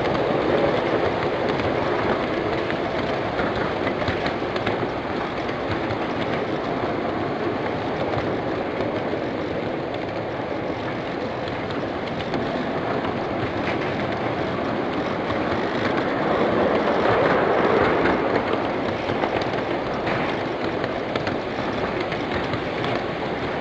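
1/8th-scale ride-on miniature train rolling along its track: a steady clatter of small steel wheels on the rails, with occasional faint clicks.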